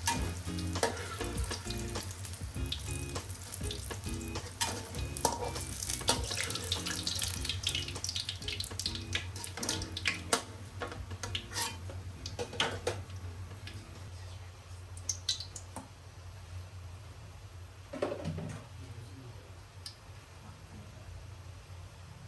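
Eggplant cubes sizzling in hot oil in a wok, with a metal spatula clinking and scraping against the wok as the pieces are lifted out. The sizzling dies down about two-thirds of the way through, leaving a few scattered clicks.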